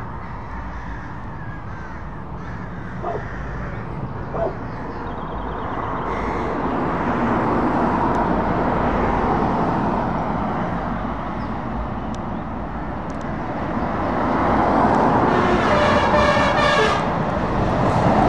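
Scania S-series Super tractor unit approaching along the road and driving past close by. Its engine and tyre noise grows loudest over the last few seconds, after a car goes by about halfway through.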